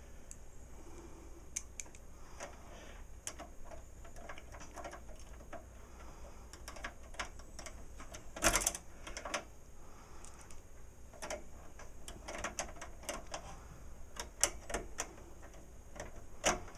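Irregular small clicks and taps of a screwdriver and screw against the computer case's metal as the video card's mounting bracket is screwed in, with a louder clatter about eight and a half seconds in. The screw is hard to get in.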